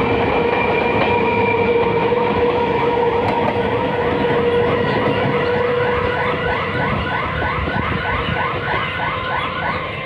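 Electric multiple-unit local train, a 12-coach BEML rake, running along the platform. Wheel and rail rumble carries a steady whine, and in the second half a quick warbling sound repeats about three times a second. The sound eases slightly near the end.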